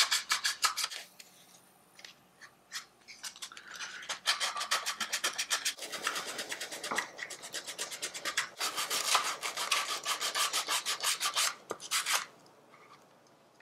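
Sandpaper rubbed by hand over cured Bondo body filler on a plastic armrest insert, in quick back-and-forth strokes several times a second. The strokes thin out about a second in, pick up again, and stop near the end.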